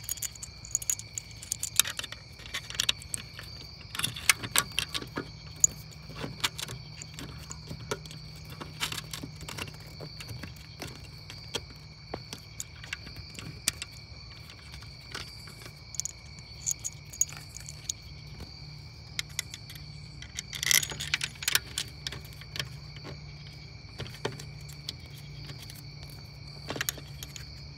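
Scattered small metallic clicks and clinks of a socket extension and bolts being handled and fitted while refitting a throttle body, with the densest run about four seconds in and another near twenty-one seconds. Crickets chirp steadily underneath.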